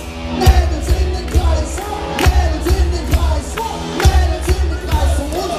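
Punk rock band playing live: drums keeping a steady driving beat under bass, electric guitar and sung lead vocals.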